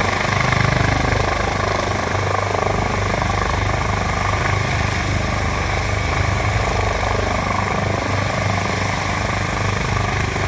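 Italian Air Force helicopter hovering close by: a steady, loud rotor beat over a high, even turbine whine.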